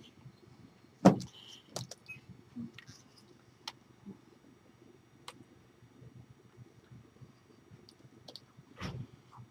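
Scattered soft taps, clicks and clothing rustle from hands striking and brushing the body during silent signing. A sharp thump comes about a second in and a softer one near the end.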